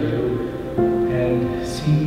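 Background music with long held notes, changing to a new chord a little under a second in.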